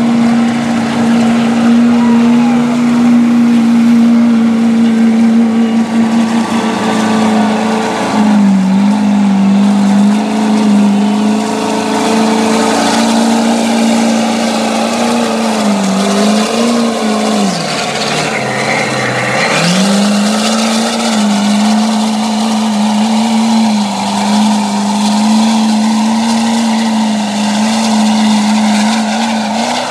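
Ford Super Duty pickup's engine held at high revs as it plows through a deep mud hole, with a steady wash of mud and water spray. The revs sag about 17 seconds in as the truck bogs down in the mud, then climb back and hold.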